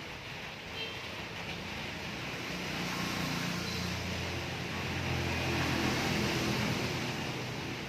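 A motor vehicle's engine running nearby over steady background hiss, swelling louder near the end.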